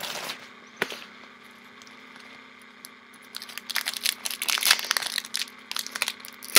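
Foil trading-card booster pack wrapper crinkling and cards being handled: a brief rustle and a soft click early, a quieter pause, then a run of quick crackly rustles from about three seconds in.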